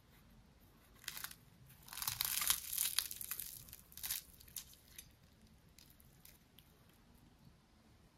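A crisp baked yufka börek roll being torn apart by hand: the flaky pastry layers crackle and crunch. The crackling is loudest from about two to three and a half seconds in, with a sharp crack just after four seconds, then trails off into faint crackles.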